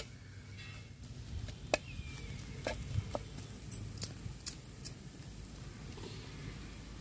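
Metal spatula scraping and clicking against a frying pan as scrambled egg is stirred, with a string of sharp, separate taps through the middle.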